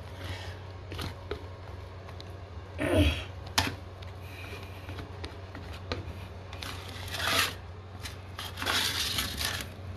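Old toilet wax-ring residue being scraped up from around the floor flange and the tile, in several rough scraping strokes, the loudest about three seconds in and over the last two seconds, with a few light knocks between them.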